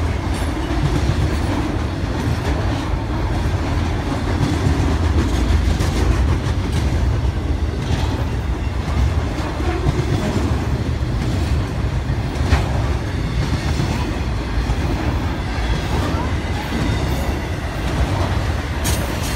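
BNSF intermodal freight train's cars, loaded with trailers and tank containers, rolling past close by: a steady heavy low rumble with clicking and clanking from the wheels and couplings, including a sharp clank about two-thirds of the way through.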